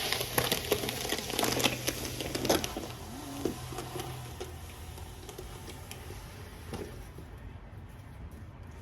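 Rustling, crinkling and clicking of a phone camera being handled and set in place for about four seconds. Then it goes quieter, leaving a faint steady low hum.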